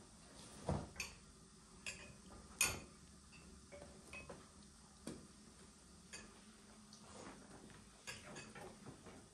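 Light clinks and taps of spoons and ceramic dishes at a dining table, irregular and scattered, the sharpest a little under three seconds in.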